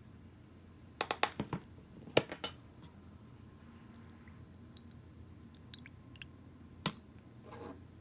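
Kitchen handling sounds: a quick run of sharp clicks and taps about a second in, two more near the two-second mark, scattered faint ticks, then one more tap and a short rustle near the end.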